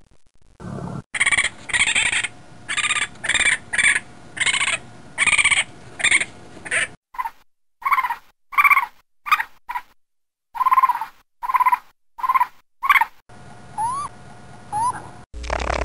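Raccoon calling in a series of short, high, repeated calls, roughly two a second, which turn into sharper, more separate calls about halfway through. Two brief rising whistles follow near the end.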